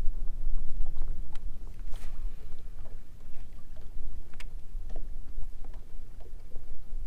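Wind buffeting the microphone as a steady low rumble, with small waves lapping against a boat hull. A few light clicks and taps are scattered through it.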